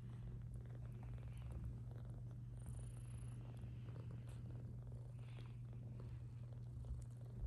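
British Longhair mother cat purring steadily while nursing her newborn kittens.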